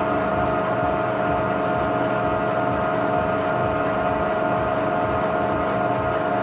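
Milling machine running steadily with a disc-type cutter in the cut on a shaft held in a dividing head, giving a steady mechanical whine over the grind of the cut.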